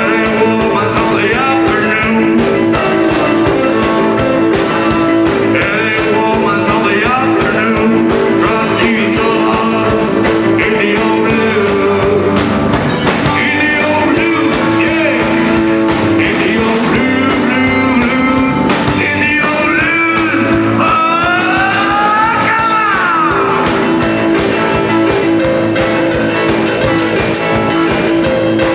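Rock band playing live: guitar and sustained instrument tones under a singing voice.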